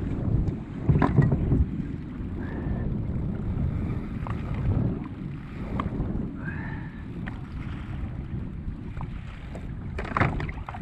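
Wind buffeting the microphone over waves lapping at a fishing kayak's hull, a steady low rush with a few light clicks and knocks.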